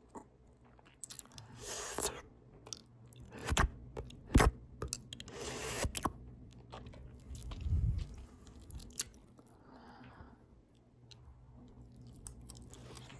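Close-up open-mouth chewing of a potato taco bowl with ground beef, cheese and lettuce: irregular wet smacks, mouth clicks and crunches. The chewing is busiest in the first half and quieter near the end.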